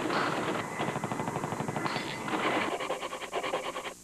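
Rapid automatic gunfire: a dense rattle of shots that cuts off abruptly near the end.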